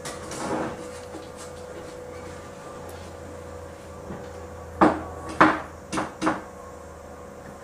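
A soft scuffing as a cat's paw bats a dead mouse across a wooden floor, then four sharp knocks in quick succession from something out of sight, over a faint steady hum.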